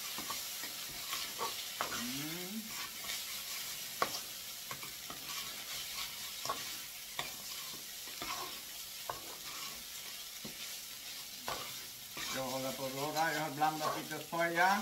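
Fried rice sizzling in a stainless steel frying pan while a spatula stirs it, with a steady hiss and scattered clicks and scrapes of the spatula against the pan.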